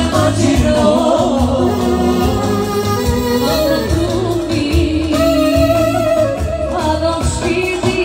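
Live çiftetel dance music: a clarinet plays an ornamented, sliding melody over a steady low drum beat.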